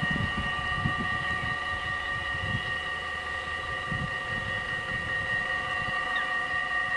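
Dutch level-crossing warning bell ringing steadily with a metallic, bell-like tone, the signal that the barriers are down and a train is coming, over irregular low rumbles.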